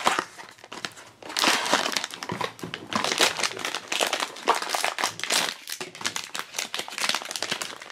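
Crinkling of a sealed plastic blind bag as hands handle it and tear it open, in quick irregular crackles, with the cardboard box flaps rustling near the start.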